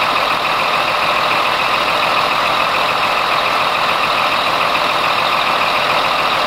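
Scania K340 coach's rear-mounted diesel engine idling steadily, heard at the open engine bay.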